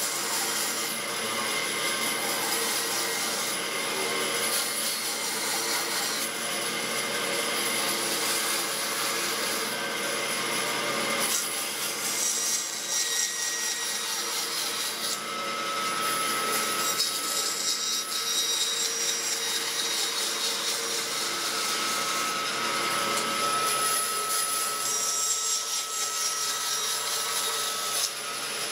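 Bandsaw cutting through square wooden posts: a steady noise of the narrow blade running through the wood, with a thin steady whine heard at times.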